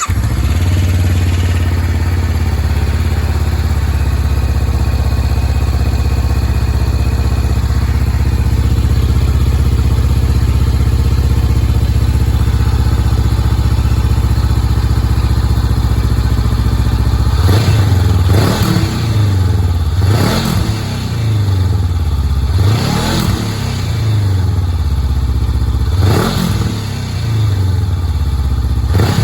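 2020 Honda CB500X's 471 cc parallel-twin idling through an aftermarket Fuel slip-on exhaust with the dB killer fitted. About two thirds of the way in the throttle is blipped several times, the engine revving up and dropping back to idle each time.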